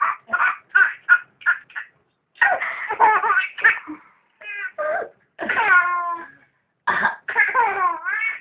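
A person coughing and a baby laughing hard in reply, the laughter coming in short rhythmic bursts and high squeals that slide up and down in pitch.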